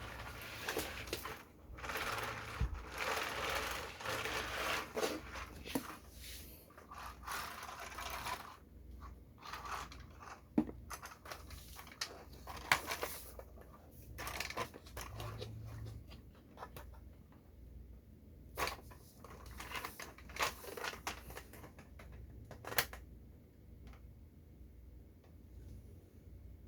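Hands handling a plastic toy model and its packaging: rustling and scraping for the first several seconds, then scattered sharp clicks and light knocks.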